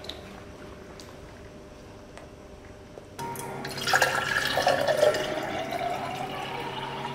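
Water poured in a thin stream into a glass tumbler over ice, splashing and gurgling, its pitch rising steadily as the glass fills. The pour starts a few seconds in, after quiet room tone.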